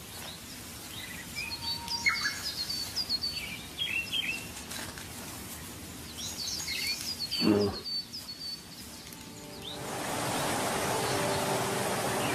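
Wild birds chirping and calling in short, repeated high phrases, with one short lower call about seven and a half seconds in. Near the end a steady rushing noise and sustained music tones come in.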